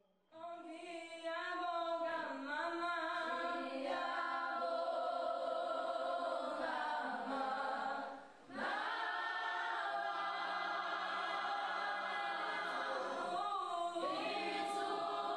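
A choir singing held chords as soundtrack music, starting out of silence just after the beginning, with a brief drop about eight seconds in before the voices carry on.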